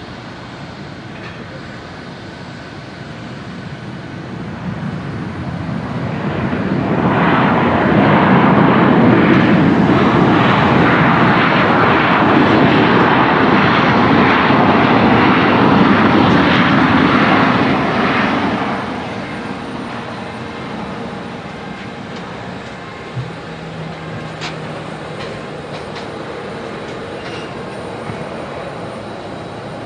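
Jet engines of a Boeing 737-800 (CFM56-7B turbofans) during its landing: a roar that swells over several seconds, stays loud for about ten seconds, then drops away to a distant steady rumble.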